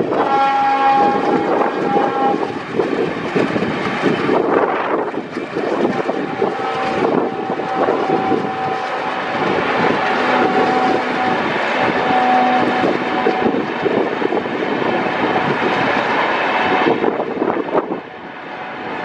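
Diesel locomotive hauling a long passenger express train past, with a steady running rumble. Its horn sounds for about two seconds near the start, then again for several seconds from about six seconds in, with short breaks.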